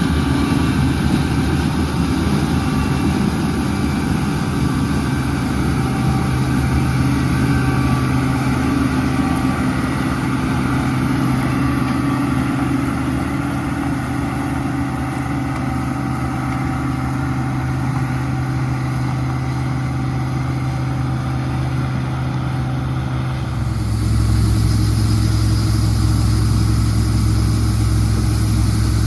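Combine harvester running steadily with a constant engine hum and machinery noise; about 23 seconds in the sound changes abruptly to a heavier, lower hum with more hiss.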